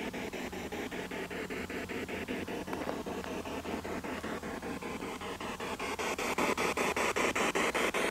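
Spirit box sweeping through radio stations: a steady hiss of static chopped up about six times a second, growing louder about six seconds in.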